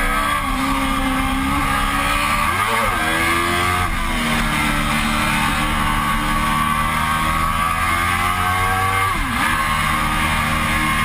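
Sport motorcycle engine under way, its revs rising and falling as the rider works the throttle and gears: a quick dip and recovery about 3 s in, a step down about 4 s in, and another brief dip near 9 s. Wind rush on the microphone runs under the engine throughout.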